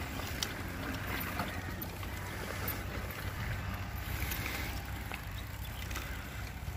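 Wind rumbling on the microphone, a steady low noise with faint scattered clicks.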